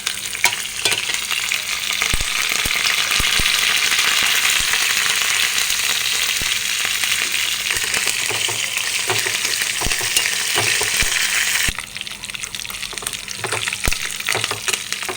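Dried red chillies and curry leaves frying in hot oil with mustard seeds and crushed garlic-cumin for an Indian tempering, a loud steady sizzle with scattered clicks of a spoon stirring the small pan. The sizzle drops off abruptly about twelve seconds in, leaving quieter frying and stirring.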